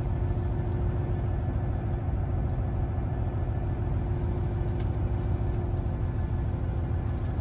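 Cab interior of a 2024 Kenworth T680 semi truck on the move: a steady low engine and road rumble with a constant hum above it.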